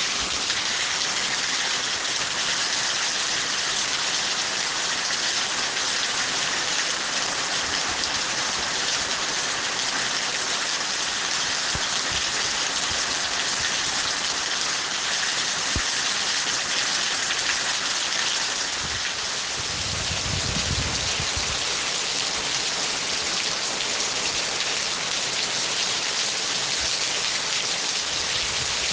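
Steady rain falling, an even hiss throughout, with a brief low rumble about twenty seconds in.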